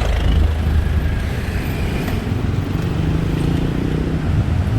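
Traffic on a busy city road: motor vehicle engines running close by, a steady low rumble.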